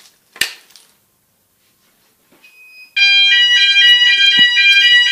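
Fire alarm sounders of a Fike TwinFlex Pro system set off from a manual call point during a weekly test: a sharp click about half a second in, a short beep, then about three seconds in the sounders start loud, several tones at once.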